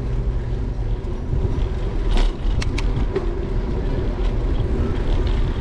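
Steady low rumble of wind and tyre noise from riding a bicycle, picked up by a bike-mounted action camera. A few sharp clicks come about two to three seconds in.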